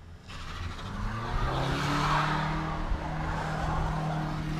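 Car engine revving up and held at high revs while a rear tire spins and squeals in a burnout. Only one tire is lit up: a 'one tire fire'.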